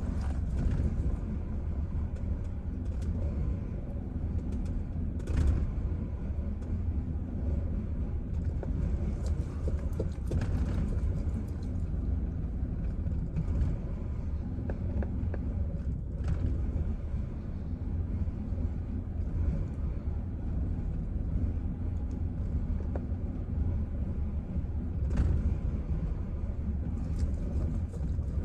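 Chevrolet Silverado engine idling roughly with a steady low rumble and a few faint clicks.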